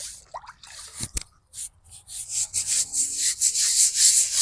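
Brush scrubbing a wet, cleaner-soaked headstone in quick back-and-forth strokes. The strokes start faint and grow steady and louder from about two seconds in, about three a second. There is a single knock about a second in.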